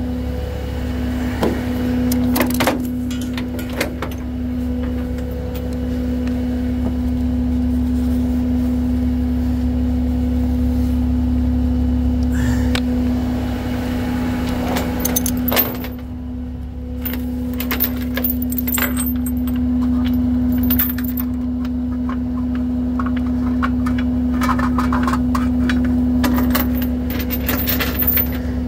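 Peterbilt rollback tow truck's engine idling with a steady hum. Scattered metallic clinks and jangles come and go over it.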